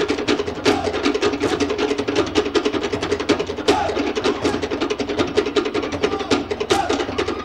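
Cook Islands drum ensemble, wooden slit log drums with a skin drum, playing a fast, driving rhythm of rapid, evenly spaced strokes to accompany an ura pa'u drum dance.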